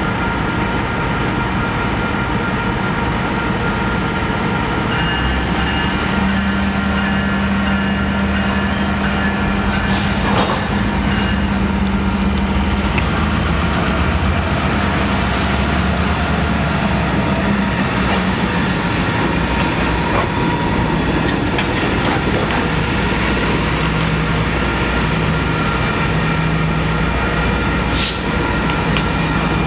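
Union Pacific train rolling past with a steady rumble of cars and wheels on the rails, a sharp clack about ten seconds in and another near the end.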